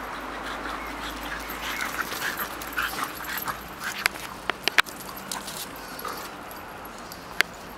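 Dogs whimpering and yipping in short, broken calls, busiest in the middle stretch. A few sharp, loud snaps stand out about four to five seconds in and once more near the end.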